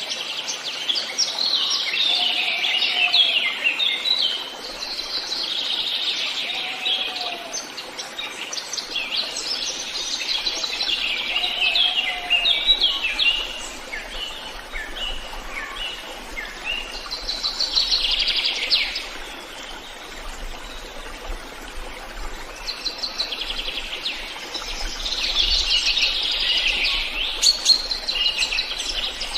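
Several wild birds singing, in overlapping phrases of quick high chirps and trills that come and go every few seconds. In the first half a lower, short, arching call repeats every few seconds, and a faint low rumble of wind runs underneath.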